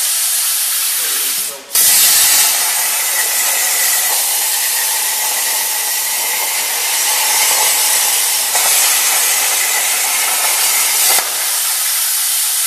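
CNC plasma cutter torch cutting metal plate: a steady hiss of air that drops off briefly, then the arc strikes about two seconds in with a louder hiss and a faint high tone. Near the end the arc cuts out and the air keeps hissing.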